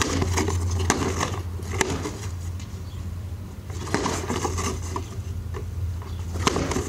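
A homemade paracord monkey fist slammed hard against a cardboard box, a series of sharp whacks and cardboard crunching spread through a few seconds, with the box knocking against the asphalt. The blows are tearing one wall of the box loose.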